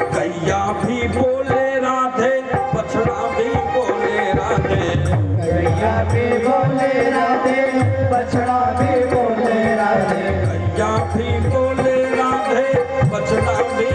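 Instrumental interlude of a Hindi devotional bhajan: a sustained, shifting melody over a steady drum rhythm.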